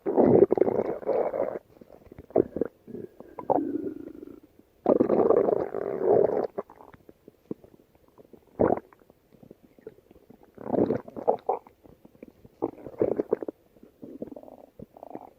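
A woman's stomach growling and gurgling in a string of irregular rumbling bursts, each lasting a second or two, with short quiet gaps between them.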